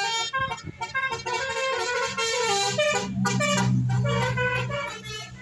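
Telolet horn: a multi-tone musical vehicle horn playing a quick jingle of short stepping notes, several a second. A deep low drone comes in about three seconds in and fades shortly before the end.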